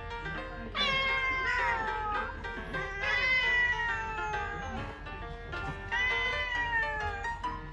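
Domestic cat yowling in a fight, three long calls that each start high and slide down in pitch. Background music of plucked notes plays under it.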